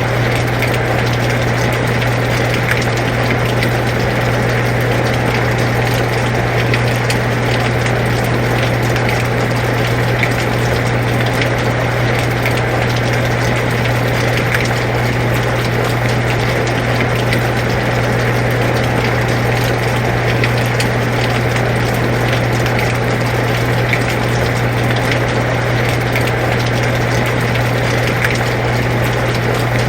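Air conditioner running with a steady low hum, together with the even hiss and patter of steady rain.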